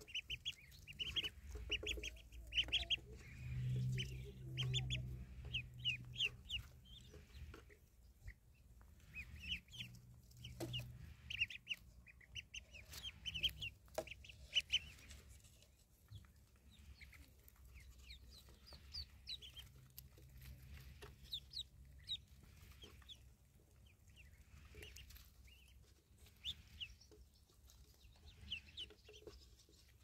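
Ducklings peeping in quick, high, short calls as they feed, thickest in the first few seconds and again around the middle, with a few sharp clicks of bills on the plastic tray. A low hum rises a few seconds in.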